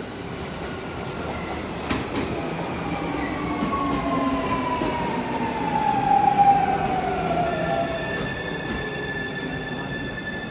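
Running sound inside a Keio 1000 series train car, with the whine of its Toyo Denki IGBT VVVF inverter and traction motors. A tone glides steadily down in pitch through the middle, a sharp click comes about 2 seconds in, and a steady high-pitched tone sets in near the end.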